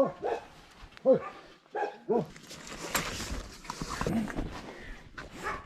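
A dog barking a few times, short separate barks about a second apart.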